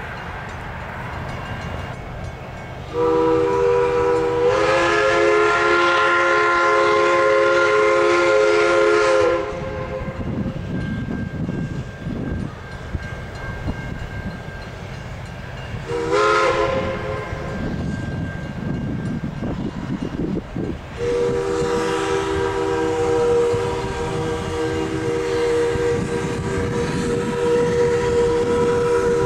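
A train's multi-note chime whistle blows for a level crossing: a long blast starting about three seconds in, a short one near the middle, and another long blast from about three-quarters of the way through. Between the blasts the train rumbles past.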